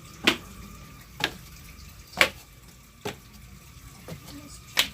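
A series of five sharp knocks at uneven intervals of about a second, over a faint steady hum.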